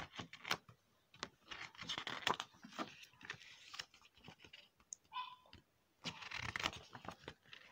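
Pages of a small paper booklet being opened and turned by hand: irregular rustling and light paper clicks, with the loudest rustle about six seconds in.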